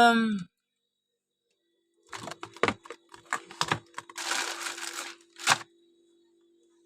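Rummaging through a pantry: irregular clicks and knocks of containers being moved, with a short rustle of a packet about four seconds in, over a faint steady hum.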